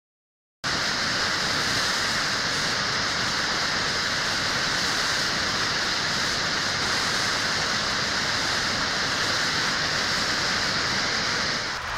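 Creek in flood: fast, muddy whitewater rushing in a loud, steady, even noise. It starts abruptly about half a second in.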